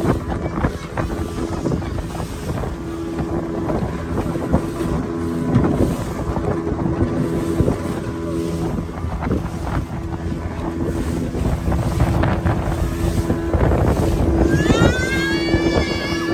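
Small fiberglass motorboat under way at speed: its engine runs steadily under the rush of water and spray, with the hull knocking on the waves and wind buffeting the microphone. Near the end a high, wavering call rises and falls over the engine.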